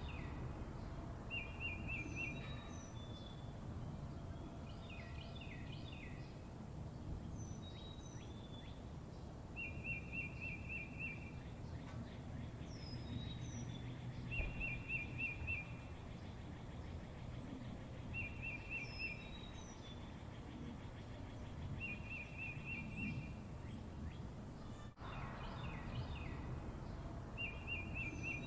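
A songbird repeating a short, rapid trill every few seconds, mixed with brief high chirps, over a steady low background rumble.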